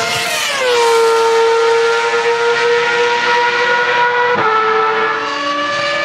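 Ferrari Formula 1 car's engine at full throttle, a high steady note whose pitch drops over the first second and then holds, with a brief break about four seconds in. Near the end a different engine note, a Ferrari 333 SP's, takes over and slowly rises.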